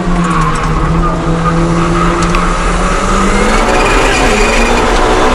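Daihatsu Copen's small engine heard from inside the cabin while cornering on a race circuit. It runs at a steady pitch through the slow corner, then rises in pitch near the end as the car accelerates out.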